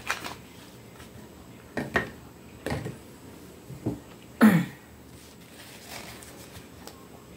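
Scattered handling sounds of a small clear plastic container: a few short clicks and crackles a second or so apart, with one louder knock about four and a half seconds in.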